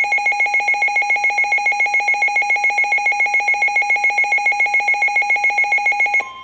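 Weather alert radios sounding their built-in alarm on receiving a warning: a loud electronic beeping, about seven pulses a second. It cuts off suddenly just before the end, and a fainter steady tone begins, the NOAA Weather Radio warning alarm tone.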